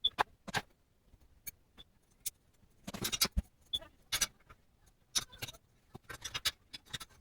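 Metal stove parts and tools clicking, clinking and tapping as the stove is put together by hand, in fast-forwarded footage: a scatter of short, sharp clicks, some ringing briefly.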